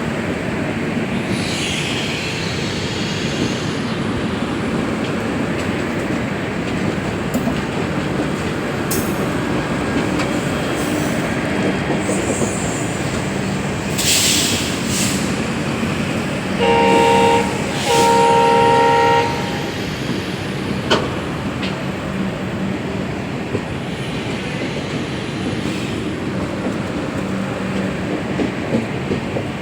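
Express passenger train running through with a steady rumble of wheels on rails. Just past halfway the locomotive sounds its two-tone horn twice, a short blast then a longer one.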